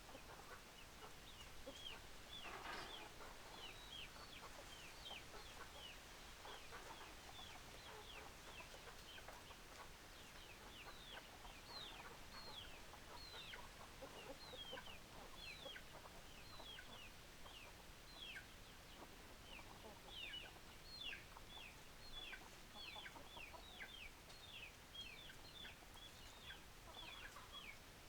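Chickens calling: many short, high peeps that fall in pitch, a few each second, with a louder call about three seconds in. Faint.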